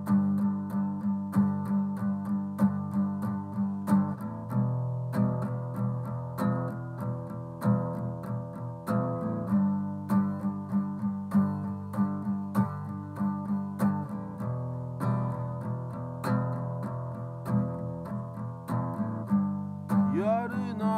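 Acoustic-electric guitar playing an intro of strummed chords at about two strokes a second, the chord changing every four or five seconds. A man's singing voice comes in near the end.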